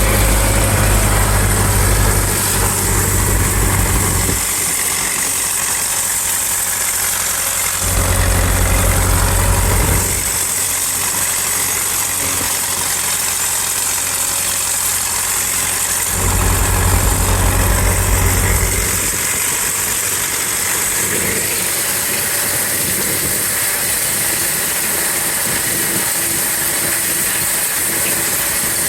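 An engine idling steadily, with a heavier low rumble that comes in for a few seconds at a time, three times.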